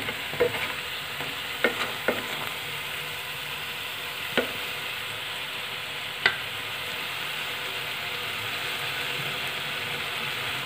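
Potato and buckwheat-flour tikkis sizzling steadily in ghee in a metal kadhai on low heat. A metal spatula clicks against the pan about five times in the first six seconds as the patties are turned.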